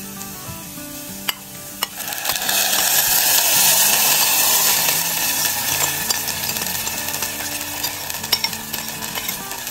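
Water-based sauce poured into hot garlic-and-shallot oil in a frying pan: after a couple of sharp clicks, a loud sizzle swells up about two seconds in, then slowly dies down.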